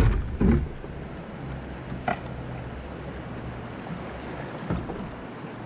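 Kayak paddling on a moving river: a wooden double-bladed paddle dipping and pulling through the water over the steady rush of the current, with a few short splashes or knocks near the start, about two seconds in and near the end. Wind rumbles on the microphone at the start.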